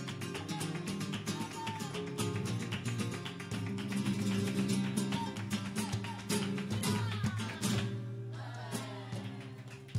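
Live flamenco music: a flamenco guitar played with many sharp, percussive strokes.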